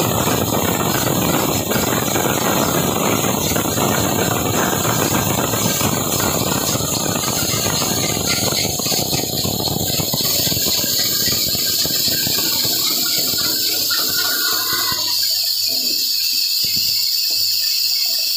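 Band saw ripping a mahogany plank, a dense cutting noise over a steady high whine. The cutting noise thins out about two-thirds of the way through, leaving mostly the high whine of the saw running free.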